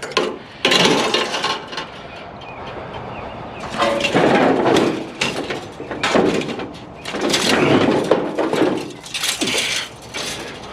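Scrap being handled and dragged: a run of irregular scraping and clattering noises, each lasting up to about a second.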